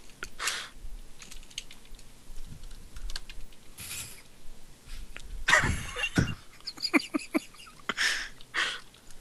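Computer keyboard typing: irregular, scattered key clicks, with a few short hissy bursts, the largest about two-thirds of the way in.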